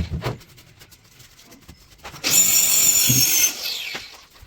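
A handheld electric power tool switched on about two seconds in, its motor running with a high whine for about a second, then winding down with falling pitch after release. A few light knocks come near the start.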